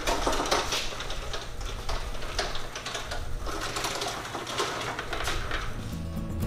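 Loaded scissor-lift table cart being pushed across a concrete shop floor, its casters and frame rattling and clattering irregularly over a low steady hum.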